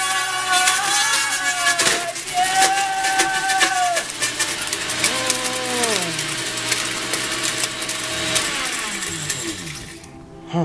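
Countertop blender with a glass jar run on high in pulses, chopping strips of a paper shipping envelope: the motor whine climbs and drops with each pulse over a dense clatter of paper pieces hitting the jar. The motor winds down and stops near the end.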